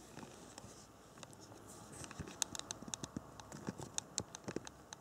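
Light, irregular clicks and taps, several a second, starting about two seconds in: small handling noises.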